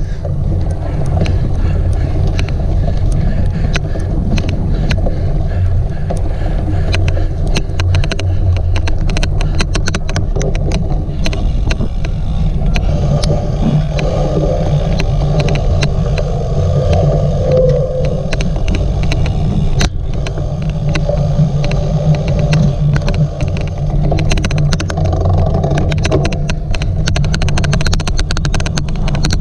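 Steady low rumble of wind and riding noise on a cyclocross bike's onboard camera microphone, with odd sharp clicks recurring irregularly throughout.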